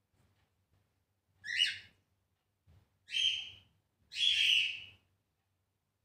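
Cockatiel calling three times, harsh screeching contact calls, the third the longest.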